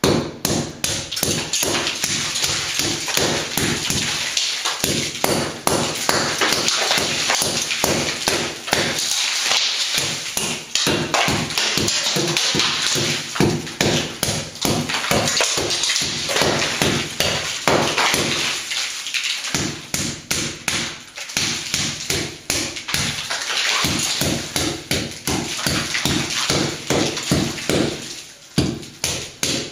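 Hammer blows chipping painted plaster off a cement slab ceiling: quick, steady tapping, several strikes a second, broken by a few short pauses.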